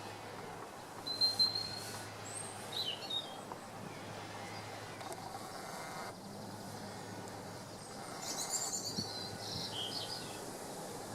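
Small songbirds calling and singing over a steady outdoor background hiss: a thin high whistled note about a second in, a few chirps soon after, and a busier burst of twittering song near the end.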